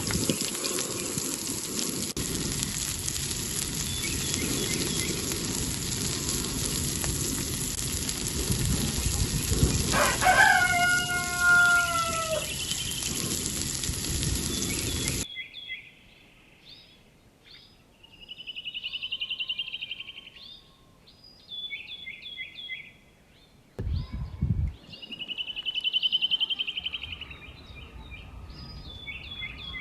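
A steady broad hiss, with one long falling bird call, like a crow, a little after ten seconds in. After a sudden cut, small birds chirp and trill in quick bursts, with a low thump near the end.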